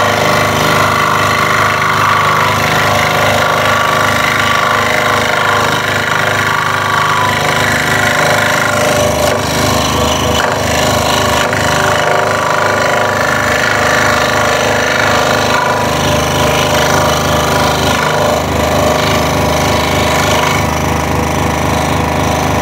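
Scroll saw running steadily, its blade stroking rapidly up and down as it cuts tight curves through a wooden jigsaw-puzzle blank.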